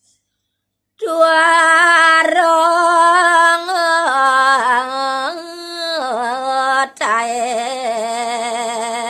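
A woman singing a Balinese gaguritan verse solo, slow long-held notes ornamented with wavering turns and stepping between pitches. The singing comes in about a second in and breaks off briefly with a click about seven seconds in before going on.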